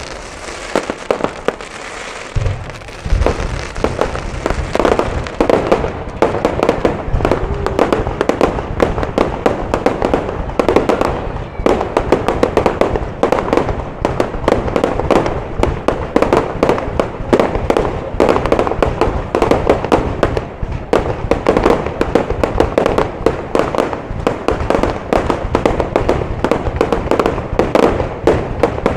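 Aerial fireworks going off: a few scattered booms, then from about three seconds in a dense, unbroken barrage of bangs and crackling.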